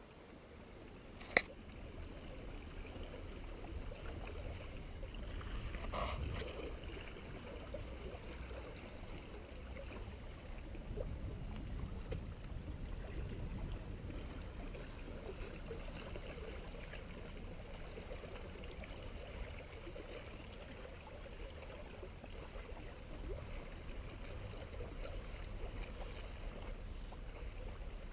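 Small waves lapping against a rocky shoreline under a steady low rumble, with one sharp click a little over a second in.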